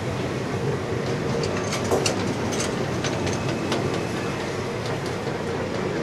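Aggregate hopper wagons of a freight train rolling past: a steady rumble of steel wheels on rail, with a run of sharp metallic clicks about two seconds in.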